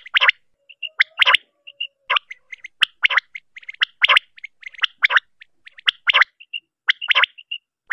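Common quail (batair) calling over and over: a short, sharp call about once a second, with softer quick chirping notes between the calls.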